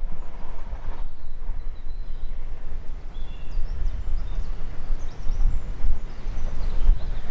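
Wind buffeting the microphone as an uneven low rumble, with a few short bird chirps scattered through it.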